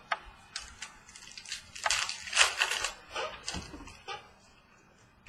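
Trading-card pack wrapper crinkling and cards rustling as they are handled, with a few sharp clicks; the crinkling is heaviest in the middle.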